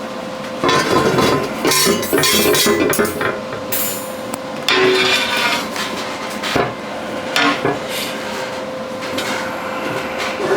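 Quarter-inch steel plate clanking and knocking against metal as it is flipped over and handled on the welding table, in a run of irregular metallic knocks with a short ring after them.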